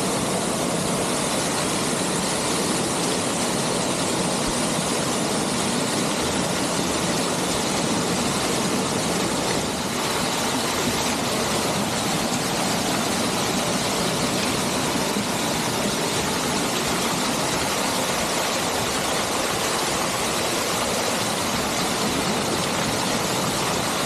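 Waterfall water rushing and splashing as a steady, even noise.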